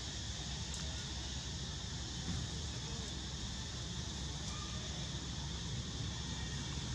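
Steady outdoor ambience: a constant high insect drone over a low rumble, with no distinct calls.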